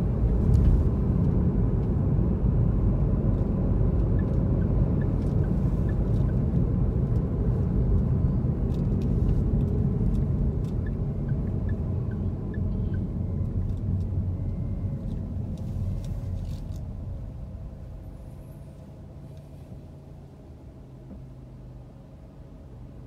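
Car on the move, heard from inside the cabin: a steady low road-and-engine rumble that fades over a few seconds about three quarters of the way in, leaving a quieter low hum.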